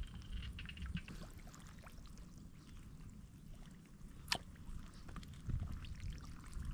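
Shallow floodwater being stirred: faint sloshing and trickling over a low rumble, with scattered small clicks and one sharp click about four seconds in.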